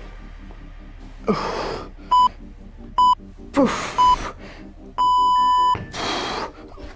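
Interval workout timer beeping a countdown: three short beeps about a second apart, then one longer beep marking the end of the work period. Hard, breathy exhalations from the exerciser come between the beeps.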